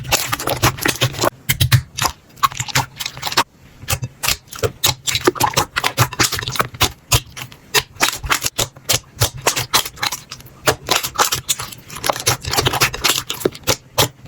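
Slime being squeezed, poked and stretched by hand, giving a dense run of quick, irregular sticky clicks, crackles and pops. It dips briefly about three and a half seconds in, then goes on as before.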